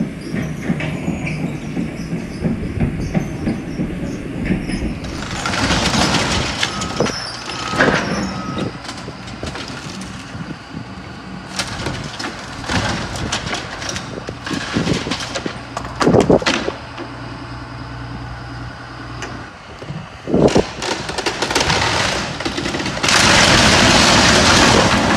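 A storm-damaged building being brought down: an engine runs steadily while metal and timber clank, creak and crash, with several louder crashes, the loudest near the end.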